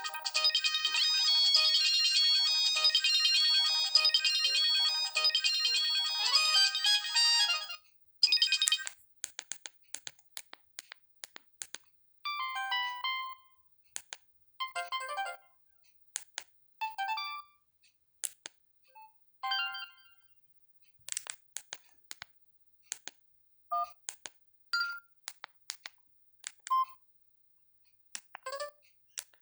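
Samsung GT-E1080F mobile phone playing one of its built-in ringtones, a bright multi-note melody from its small speaker that stops about eight seconds in. After that come sparse key clicks and short bursts of tones, each a second or less.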